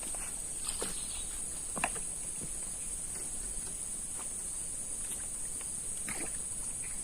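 Steady high-pitched drone of insects, with a few short clicks and taps scattered through it.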